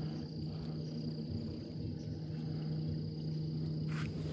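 A 30 lb-thrust electric trolling motor humming steadily at a low setting, with a thin, steady high trill, like an insect, over it.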